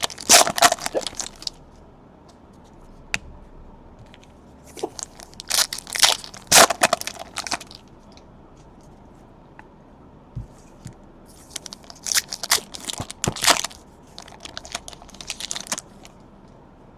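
Trading-card pack wrappers being ripped open and crinkled by hand, in three bouts of sharp crackling with short pauses between.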